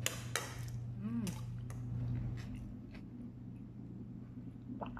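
Cutlery clinking on a plate a few times at the start, then a brief hummed "mm" that rises and falls in pitch about a second in, followed by faint eating sounds and a sip from a mug near the end. A steady low hum runs underneath.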